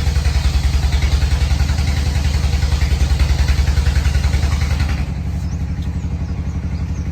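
A small engine running steadily with a rapid, even low throb. It eases down a little in level about five seconds in and keeps running.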